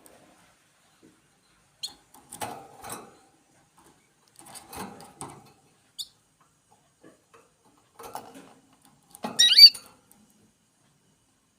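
Small birds giving short, high squeaky chirps, with soft rustling in between; the loudest is a quick run of chirps falling in pitch near the end.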